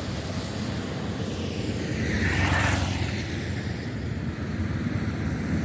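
Road traffic on a wet bridge: a steady low rumble of passing engines, with one vehicle swelling past and fading about two and a half seconds in.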